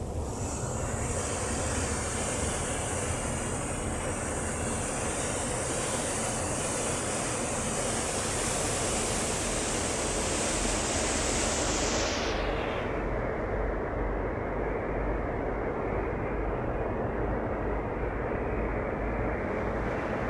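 Steady noise of a fast passenger boat under way: engine rumble with water rushing along the hull. A high hiss over it dies away about twelve seconds in.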